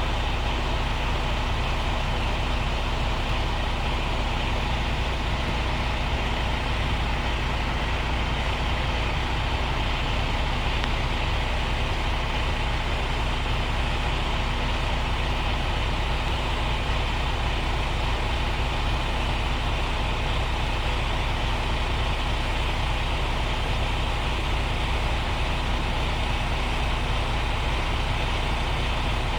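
Diesel truck engine idling steadily, with an even low hum and no revving.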